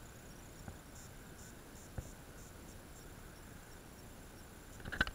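Faint high-pitched insect chirping in short repeated pulses, with one click about two seconds in and a few sharper clicks near the end.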